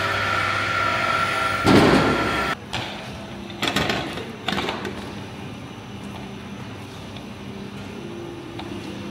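Metal kitchenware in use: over a steady hum, a loud clatter about two seconds in, then a metal skimmer scraping and clinking a few times against a large steel pot of rice and a metal serving tray.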